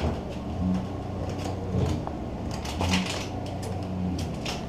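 A few soft footsteps and taps, about a second apart, over a steady low background hum.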